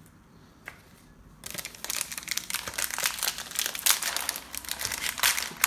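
Plastic wrapper of a pack of baseball cards crinkling loudly as the pack is opened and handled, starting about a second and a half in.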